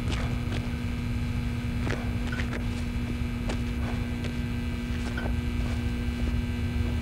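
Steady electrical hum over a low rumble, with a few faint scattered clicks.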